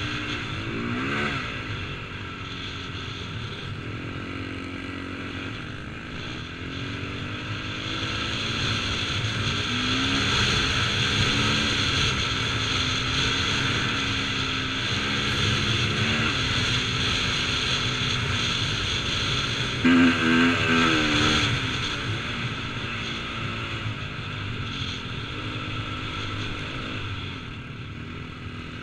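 KTM 450cc four-stroke single-cylinder motocross engine running under load through soft sand, its pitch rising and falling as the throttle is worked, with a sharp burst of revs about twenty seconds in. It is heard from a helmet-mounted camera, with a rush of noise over the engine.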